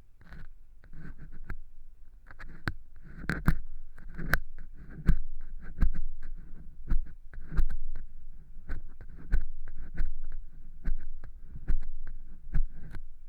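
Earpick scraping dry cork-chip fake earwax inside a silicone ear model: a run of crunchy scratches and clicks, a strong one about every second, each with a dull low thud under it.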